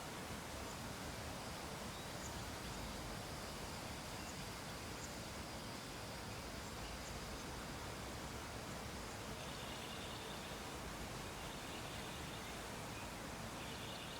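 Steady low background hiss, with a faint thin high tone in the first half and faint patches of higher warbling tones in the second half.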